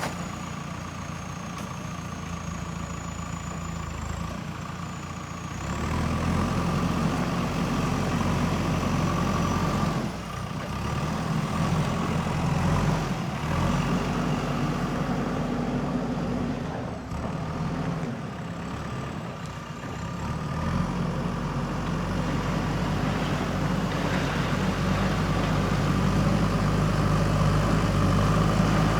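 JCB backhoe loader's diesel engine running under load, its note rising and falling as the machine works. It gets louder about six seconds in and dips briefly a few times.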